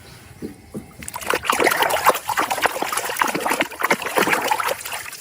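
Water splashing and trickling as a muddy toy animal is washed, starting about a second in.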